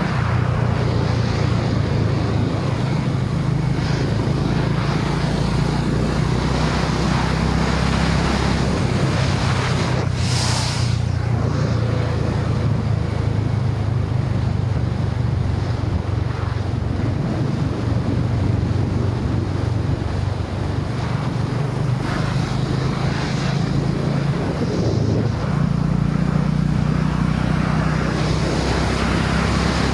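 Honda H'ness CB350's single-cylinder engine running steadily at cruising speed, with wind rushing over the microphone. The engine note eases off for a stretch in the middle.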